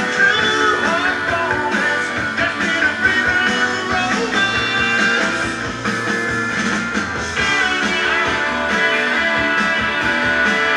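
Music with guitar playing from a vinyl record on a Benjamin Elac Miracord 45 idler-drive turntable.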